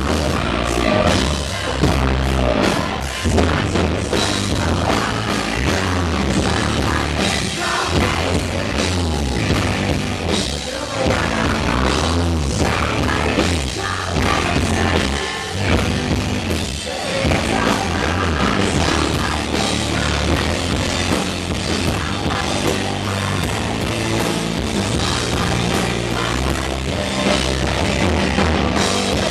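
Live rock band playing: a female lead voice singing over electric guitar and a drum kit, heard loud and dense as from within the audience.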